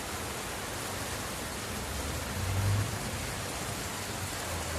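Heavy rain falling steadily, an even hiss. A low hum joins briefly about halfway through and again near the end.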